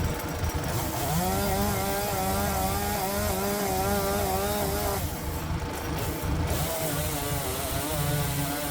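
Power tiller's single-cylinder diesel engine running, driving the work on tough black locust firewood. About a second in a wavering whine rises over it and holds for roughly four seconds as the machine works under load, then the engine carries on with a fainter whine.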